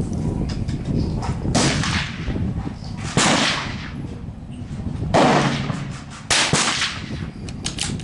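Three sharp .22 rimfire rifle shots, a second or two apart, each with a short ring-out. Gusting wind rumbles on the microphone throughout.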